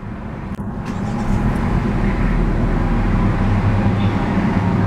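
A 2014 Hyundai Elantra's 1.8-litre DOHC four-cylinder engine, heard from inside the cabin, starts from the push-button ignition. It catches about a second in and settles into a steady idle.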